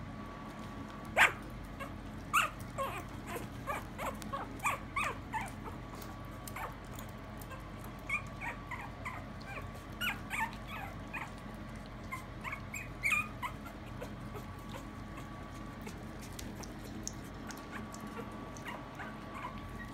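One-month-old Maltese puppy whimpering and yipping in quick bunches of short, high squeaks, the loudest just after the start, fading out after about thirteen seconds: a puppy wanting to be let out to its owner.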